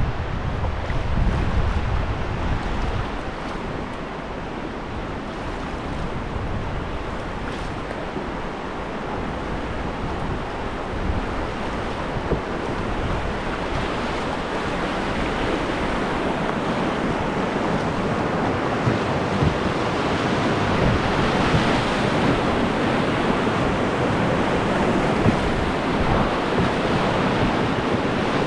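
Whitewater rapids rushing steadily, growing louder over the second half. Wind buffets the microphone during the first few seconds.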